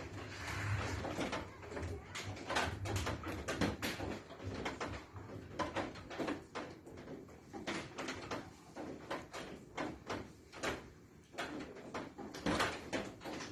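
Irregular knocks and clicks, a few every second, with a low hum under the first few seconds.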